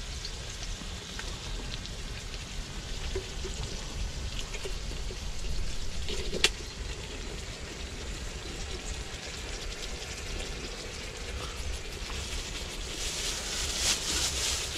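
A folding knife scraping canned beef out of a tin into a cooking pot over a steady hiss. There is one sharp metallic click about six and a half seconds in, and a burst of sizzling near the end as the meat lands in the hot pot.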